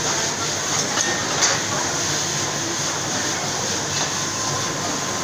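Steady roar of an open restaurant kitchen's gas wok burners running at full flame, with a couple of short metal clinks of a ladle against a wok about a second in.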